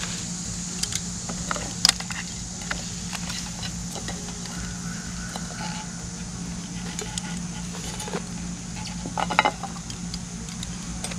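Metal mess-kit pans, plates and utensils clinking and scraping as fried food is lifted out and plated, with a cluster of louder clatters near the end. A steady high hiss and low hum run underneath.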